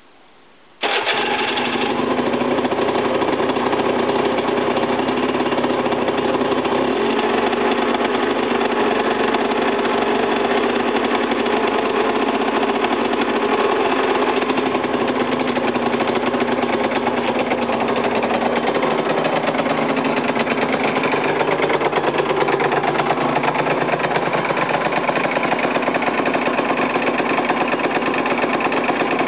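Aprilia RS125's 125 cc two-stroke single-cylinder engine starting about a second in, then running at a steady idle.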